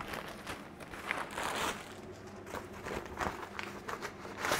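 Plastic packaging bag crinkling and rustling in irregular bursts as a new part is unwrapped from it by hand.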